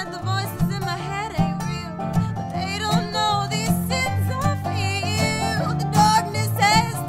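Live bluegrass-style band music: banjo and other plucked strings over steady low bass notes, with sliding, wavering lead lines that may be vocals or dobro.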